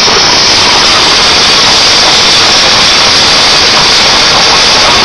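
CNC waterjet cutting machine's high-pressure jet cutting through metal plate: a loud, steady hiss.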